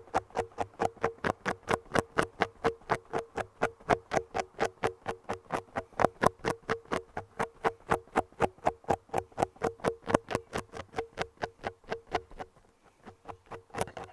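Fast, even tapping, about six sharp taps a second over a steady low hum, breaking off for about a second near the end before starting again.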